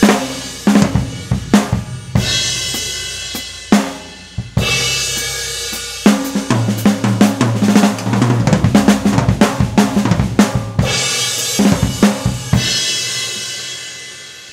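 Drum kit played with repeated crash-cymbal strikes on a Zildjian S Family 20-inch medium thin crash (B12 alloy); each crash's bright wash rings and fades between strokes. In the middle comes a busier run of drum fills mixed with cymbal hits. It ends on a crash left to ring out and die away.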